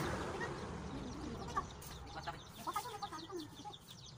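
Birds calling: scattered short chirps and clucks, then quick runs of short, high, falling peeps in the second half. A broad rushing noise fades out over the first second.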